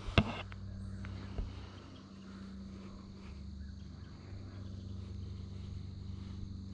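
Quiet woodland ambience with a steady low hum and faint insect chirring, broken by one sharp click just after the start and a soft thump about a second later.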